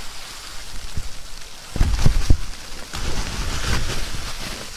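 Wind gusting and wet snow pattering on a tarp shelter, with rustling and low thumps of handling or wind on the microphone about 2 seconds in.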